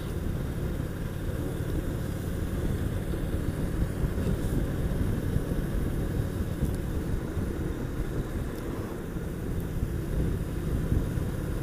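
Honda VT750S motorcycle's V-twin engine running steadily while riding along at road speed, heard as an even low rumble mixed with road and wind noise.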